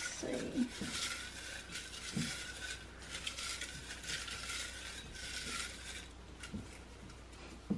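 Folded paper slips rustling as a hand stirs through them inside a glass jar, with a few light knocks of fingers against the glass. The rustling stops about six seconds in.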